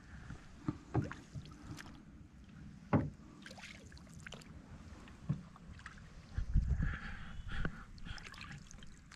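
Aluminum canoe being paddled on calm water: paddle strokes and water swishing along the hull, with several sharp knocks as the paddle or gear strikes the metal hull. A brief low rumble comes about six and a half seconds in.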